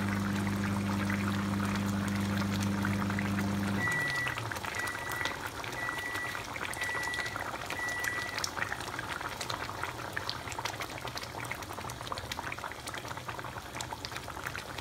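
Curry simmering in a pan, with a fine crackly bubbling. A steady electric hum underneath winds down and stops about four seconds in, followed by five short high electronic beeps about a second apart.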